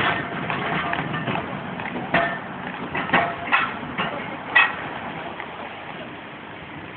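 Horse-drawn tram moving away along the rails, a scatter of irregular knocks and clatters from hooves and iron wheels over a steady hiss, fading as it recedes.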